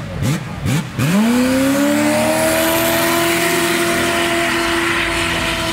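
Jet sprint boat's V8 engine: a few quick throttle blips, then about a second in it revs up and holds at high revs under full power, over a loud rush of water spray.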